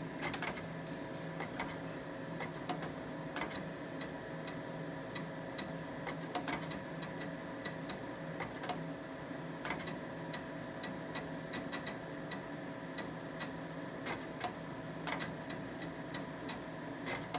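Dual QumeTrak 842 8-inch floppy drives reading and writing during a file copy with verify: irregular clicks and ticks of the heads seeking track to track, over a steady hum.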